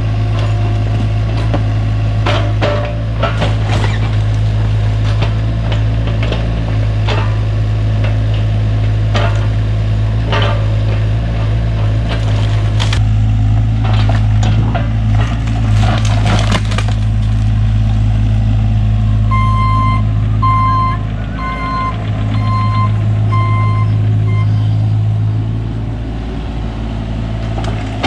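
Cat 303 mini excavator's diesel engine running steadily under load while its bucket crushes and splinters rotten shed lumber, giving many sharp cracks and snaps. After the cracking stops, a backup alarm beeps about seven times, a little under one beep a second.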